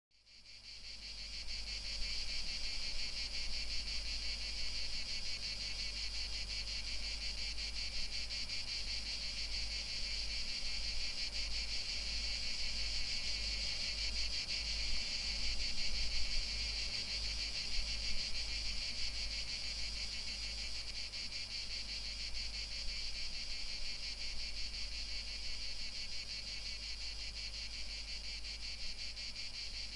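Steady chorus of summer insects, a dense high shrill with a fast shimmering pulse, fading in over the first second or two.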